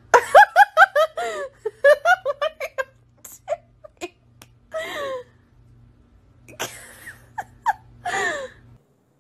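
A person giggling off camera in a quick run of short bursts, about four or five a second, for the first three seconds, then laughing again in short spells a few seconds later.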